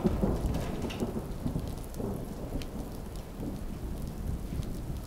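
Steady heavy rain, with a low rumble of thunder and scattered drips and patters.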